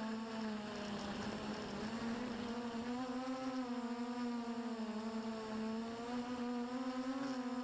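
Multirotor drone's motors and propellers whining steadily as heard from the onboard camera, the pitch dipping and rising slightly as it manoeuvres.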